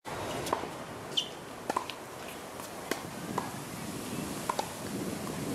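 Tennis balls struck by rackets on a hard court during a practice rally: sharp pops about once a second, some in quick pairs of bounce and hit.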